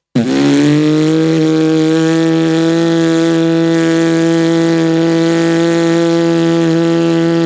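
A single steady pitched drone, held unbroken for about seven seconds; it dips slightly in pitch as it starts and cuts off abruptly at the end.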